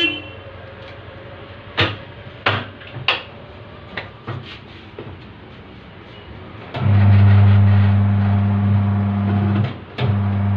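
Tyre-changer machine's turntable motor running in bursts as the tyre is worked back onto the rim, a steady low hum. The longest run starts about seven seconds in and lasts about three seconds, followed by a shorter run. Before that come a few sharp knocks as the tyre and rim are handled.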